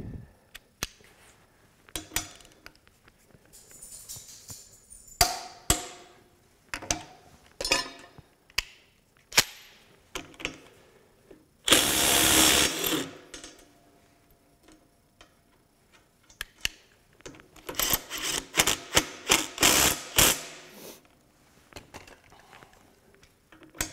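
A Ridgid 18-volt sub-compact 3/8-inch impact wrench hammers once for about a second and a half, breaking loose a bolt tightened to 170 ft-lb. Before and after it come scattered clicks and clanks of steel tools on a steel bench, and near the end a quick run of rattling clicks.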